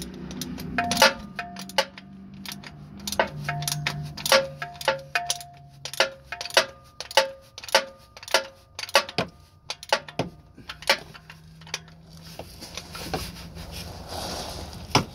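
Ratchet wrench clicking with a short metallic ring, about two to three clicks a second, as it tightens down the cap of a canister-style oil filter housing. The clicks stop about three seconds before the end, leaving a soft hiss.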